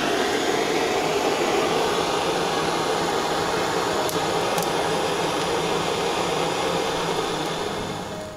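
Wood fire catching in the feed opening of a steel stove, making a steady rushing noise with a couple of faint crackles midway. The noise eases off slightly near the end.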